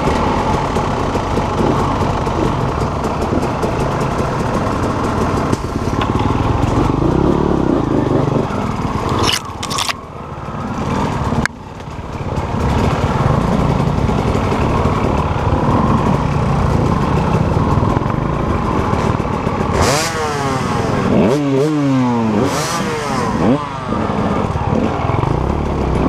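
Dirt bike engines running at low trail speed, the throttle opening and closing. About twenty seconds in, an engine revs up sharply several times in quick succession.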